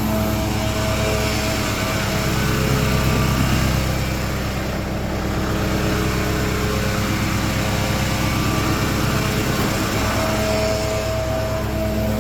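An engine running steadily at a constant pitch, its hum blurring rougher and noisier for most of the middle and clearing again near the end.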